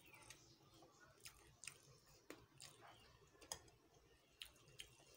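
Faint eating-by-hand sounds: scattered soft clicks and squishes of fingers mixing rice and curry on a steel plate, and of chewing.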